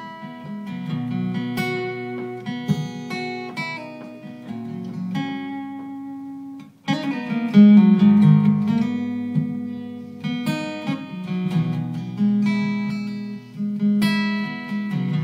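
Plugged-in acoustic guitar playing an instrumental song intro, picked and strummed chords with the notes left ringing. There is a brief break about seven seconds in, and then the playing comes back louder.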